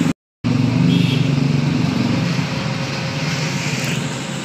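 An engine or motor running steadily, a little quieter after about two seconds, with the audio cutting out completely for a moment near the start.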